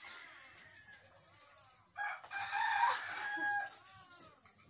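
A rooster crowing once, starting about two seconds in and lasting under two seconds.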